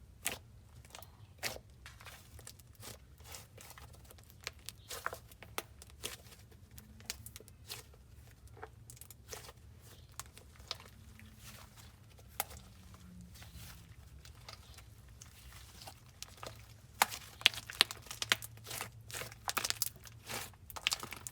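Slime being squished and pressed by hand, making irregular sticky clicks and crackles that grow denser and louder near the end.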